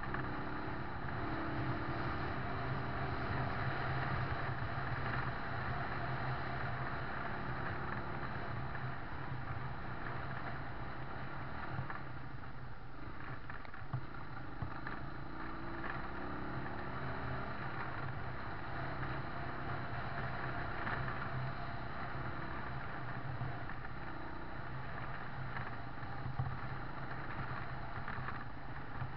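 A vehicle engine running steadily while driving along a dirt track, with wind rushing over the microphone and a few small knocks.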